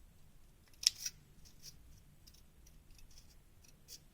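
Scissors cutting thin aluminium sheet from a drinks can. There is one sharp snip about a second in, then a few faint small clicks.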